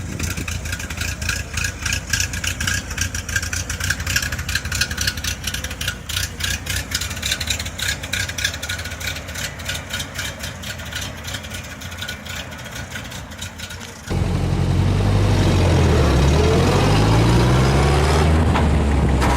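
Ford-type L-head (flathead) inline-four engine running with a steady, rhythmic firing beat. About fourteen seconds in, a sudden cut brings a louder, deeper recording of the engine revving up and down.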